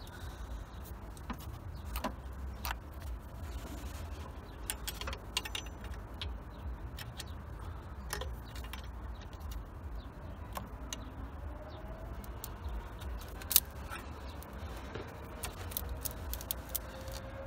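Scattered metallic clicks and clinks of hand tools on engine parts as a bracket is unbolted, with one sharper click later on, over a low steady hum.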